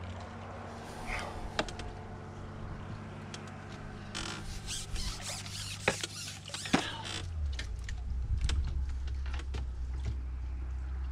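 Creaks and clicks of fishing tackle being worked while a hooked carp is played, most frequent in the middle, over a steady low hum that drops in pitch about seven seconds in.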